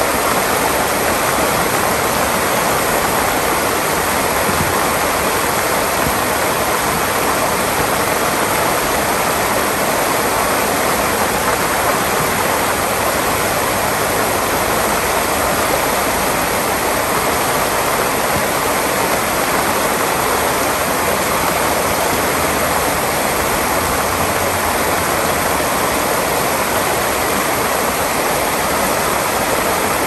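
River water rushing in a steady, even noise that does not change.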